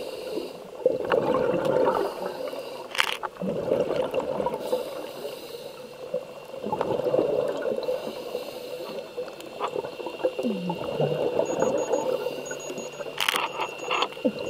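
A scuba diver's regulator exhaling underwater: bursts of rushing bubbles that swell and fade every few seconds. A faint steady whine runs under them, and there are two sharp clicks, one about three seconds in and one near the end.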